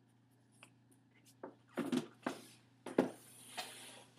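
A large paper poster sheet being pulled off and handled: a few sharp crinkling, flapping rustles with knocks about two and three seconds in, then a longer high sliding rustle near the end.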